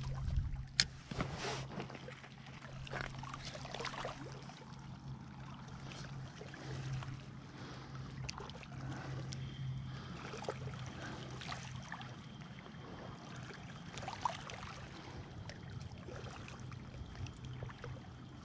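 Lake water lapping and trickling, with scattered light clicks and a steady low hum underneath.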